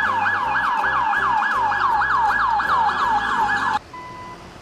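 Electronic police siren in a fast yelp, its pitch falling again and again about four times a second, cutting off suddenly near the end.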